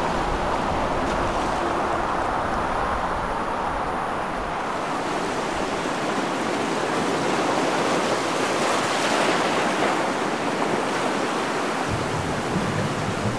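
Sea surf: waves breaking and washing ashore in a steady rush that swells and eases.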